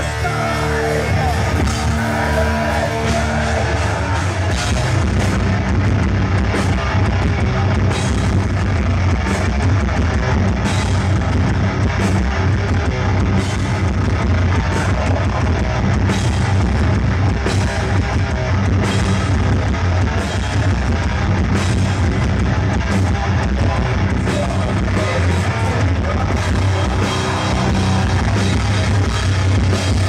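Heavy metal band playing live, loud and dense: distorted electric guitars, bass and a drum kit.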